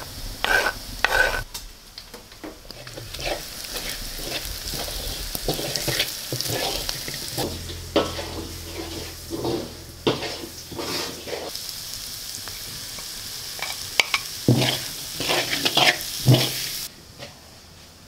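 Chopped winged beans sizzling as they fry in a pan, with a spoon stirring them and knocking against the pan many times. The sizzle drops away near the end.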